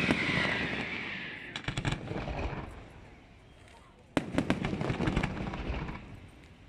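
Aerial fireworks going off. A hissing fizz with crackles fades over the first two and a half seconds. A sharp bang about four seconds in is followed by a spray of crackling that dies away.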